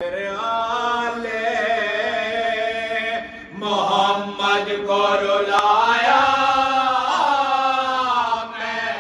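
Men's voices chanting a marsiya, a Shia mourning elegy, together: one lead voice with a group joining in, holding long, slowly gliding notes. The voices drop briefly about three and a half seconds in, then rise again.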